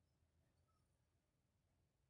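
Near silence, with only a faint steady low hum of room tone.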